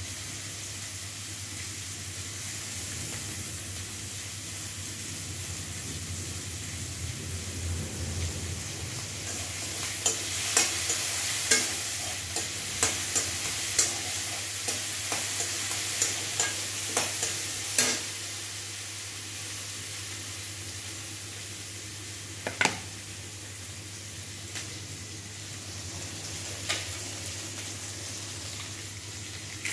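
Chopped vegetables frying in oil in a metal kadai on a gas burner, with a steady sizzle and a low hum underneath. A metal spatula stirs and clacks against the pan in a quick series of strikes from about a third of the way in to just past the middle, with a couple of single knocks later.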